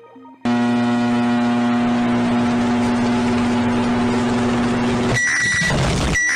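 Loud, steady, low buzzing horn-like alarm tone with many overtones, held for nearly five seconds after a brief quiet stretch of faint stepped tones; near the end it breaks into pulsing high-pitched alarm beeps.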